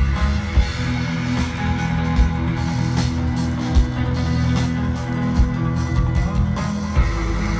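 Instrumental post-rock played live at concert volume by a rock band: sustained, layered electric guitars over bass and drums, with a heavy drum hit about every 0.8 seconds.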